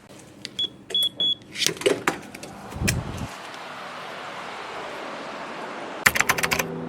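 Three short high electronic beeps, then scattered clicks and a low thud, followed by a steady hiss and a quick run of sharp clicks near the end.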